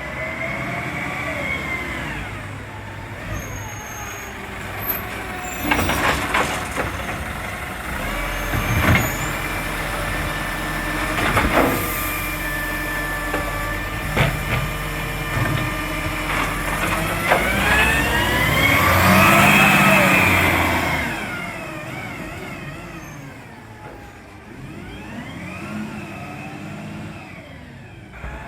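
Garbage truck engine revving up and down, its exhaust leak repaired, with several sharp clunks and hisses in the middle. The engine pitch climbs to its loudest about two-thirds of the way through, then falls away.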